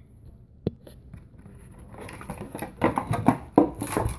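A roll of plastic wrap handled close to the microphone: one sharp click under a second in, then a run of scratchy rustling and knocks over the last two seconds.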